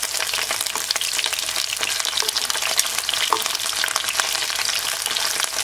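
Battered shrimp frying in shallow olive oil in a nonstick pan, a steady crackling sizzle full of small pops of spitting oil, as the shrimp are turned over with tongs.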